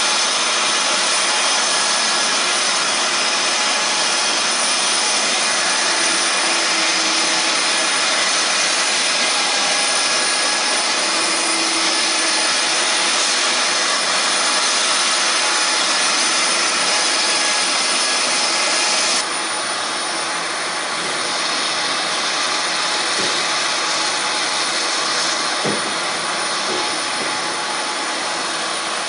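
Lockheed C-5M Super Galaxy's turbofan engines running, a steady loud jet noise with a high whine. About two-thirds of the way through the sound suddenly drops a little and turns duller.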